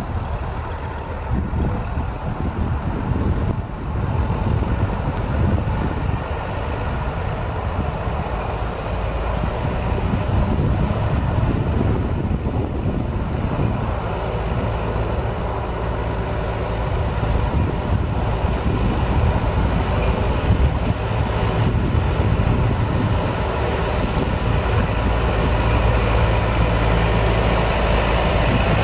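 John Deere 6310SE tractor's four-cylinder diesel engine running as the tractor drives closer, its steady hum slowly growing louder.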